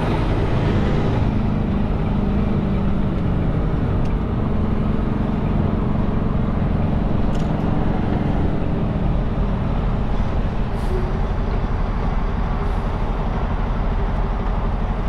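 Semi truck's diesel engine running while the truck drives: a steady low drone with road noise. Its lower tone eases off about halfway through.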